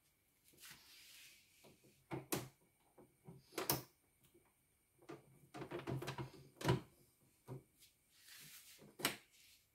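Scattered clicks and knocks of plastic and metal, four of them louder, with soft rustling between, as an embroidery machine's embroidery unit is worked on with a screwdriver and its parts handled.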